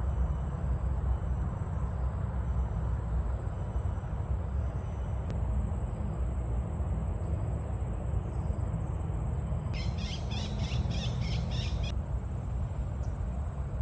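A bird gives a rapid series of high notes for about two seconds, about ten seconds in. Underneath is a steady low rumble and a thin, steady high tone.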